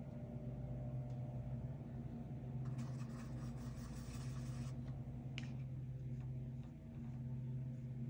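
Soft scratching of a drawing tool moving across paper for about two seconds, starting about three seconds in, followed by a single light tick. A steady low hum runs underneath throughout.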